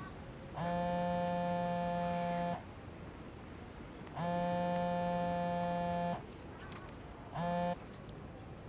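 Mobile phone ringing with a steady buzzing tone: two rings of about two seconds each, then a third cut short as the call is answered.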